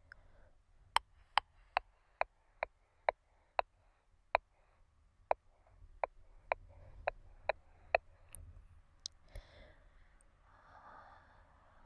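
A run of about fifteen sharp mouth clicks, roughly two a second, then a soft breath out about a second and a half before the end.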